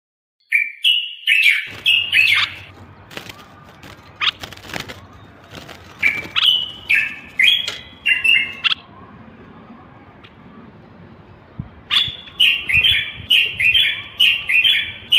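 Common bulbul singing in three bouts of short phrases of quick whistled notes stepping up and down, with pauses between. A few sharp clicks fall in between.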